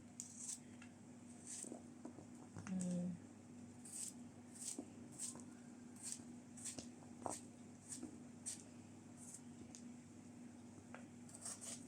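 Faint, short scraping strokes repeating at an uneven pace of about one or two a second, with a pause shortly before the end, over a steady low hum.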